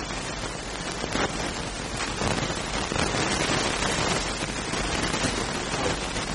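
Steady hiss-like noise of a crowded room with scattered sharp clicks, such as camera shutters at a photo call.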